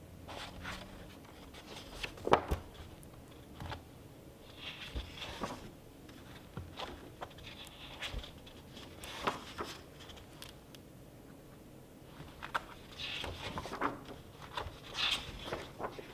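Paper pages of an old book being turned by hand: several dry rustles and flicks of paper with small clicks from handling, the sharpest click a couple of seconds in.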